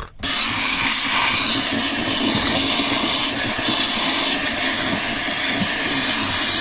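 Handheld steam cleaner jetting steam: a steady, loud hiss that starts a moment in and runs on without a break, melting frost in a fridge.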